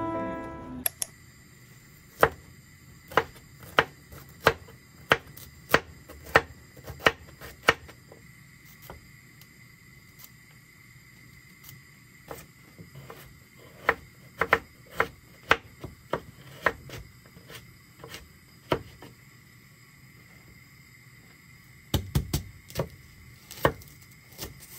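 Kitchen knife chopping vegetables on a wooden cutting board: sharp single knocks, about one to two a second, with a quick cluster of heavier chops near the end.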